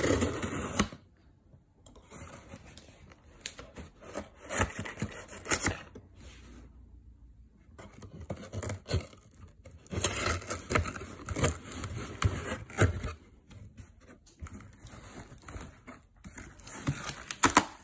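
Packing tape being slit and torn along the seam of a cardboard shipping box, with cardboard flaps scraping and rustling as the box is opened. It comes in three spells of tearing and scraping with short pauses between.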